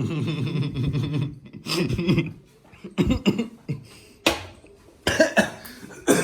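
A person coughing in several separate bursts, after a short held vocal sound at the start.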